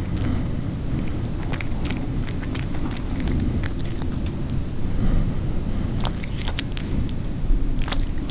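A tabby cat lightly chewing a chicken neck close to the microphone: scattered crunches and clicks of teeth that come and go, over a steady low rumble. Near the end it licks its lips.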